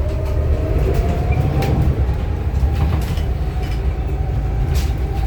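Inside a moving city transit bus: the drivetrain runs with a low rumble and a whine that rises in pitch over the first two seconds and then holds steady, with a few scattered rattles from the body.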